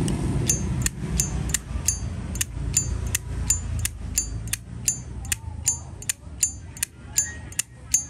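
1966 high-polish chrome Zippo lighter's lid flicked open and snapped shut over and over, about two or three metallic clicks a second, many with a high ringing ping. The lighter's hinge cam has been replaced and adjusted.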